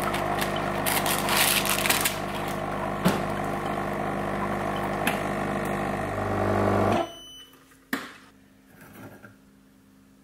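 A steady machine hum, crackled over by the plastic wrapper of a biscuit packet being handled. The hum cuts off suddenly about seven seconds in, leaving a quiet room with a single click.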